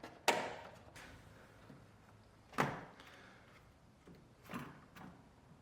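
Faint clicks and scrapes of a hand tool loosening the screw on a washing machine's sump hose clamp: a soft scrape at the start, a sharper knock about two and a half seconds in, and two softer taps near the end.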